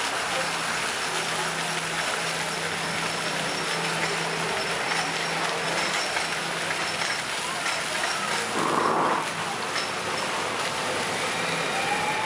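Water running and spraying along a raft ride's wet conveyor ramp as a steady rushing hiss, over a steady low hum of ride machinery. A brief louder burst of noise comes about nine seconds in.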